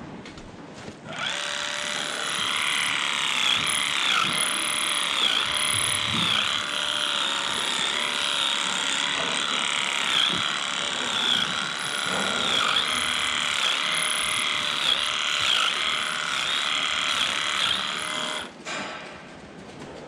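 Handheld electric clippers running as they trim the hair of a cow's tail switch: a steady buzz that starts about a second in and stops about a second and a half before the end. Its pitch dips and recovers over and over.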